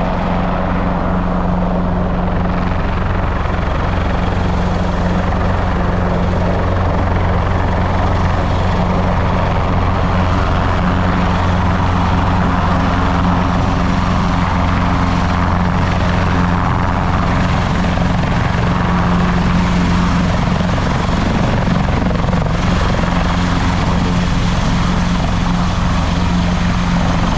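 Rescue helicopter running loud and steady, its rotor and engine noise unbroken, with a thin high whine over it.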